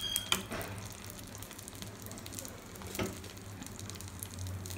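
Kuzhi paniyaram batter sizzling steadily in hot oil in the cups of a paniyaram pan as it is poured in. There is a short clink near the start and a soft knock about three seconds in.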